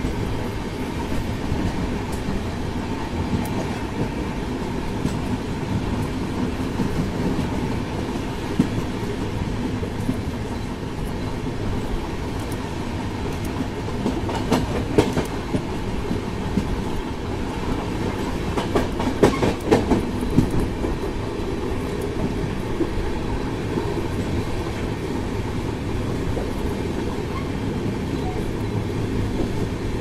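Passenger train running along the track, heard from the window of a coach: a steady rumble with clickety-clack of the wheels on the rails. Two short bursts of louder wheel clatter come about halfway through and again a few seconds later.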